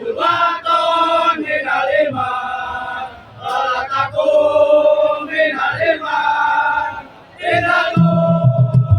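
A tongtek troupe's group of male voices chanting in unison in long held, sliding phrases. About a second before the end, low drum beats come in as the percussion starts up.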